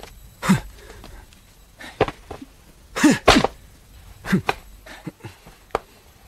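A person coughing in a series of short, harsh bursts spread over a few seconds, several with a falling voiced tail.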